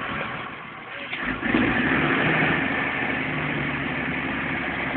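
Massey Ferguson 6190 tractor's six-cylinder diesel engine working under load while spreading slurry, heard from inside the cab. It gets louder a little over a second in and then runs steadily.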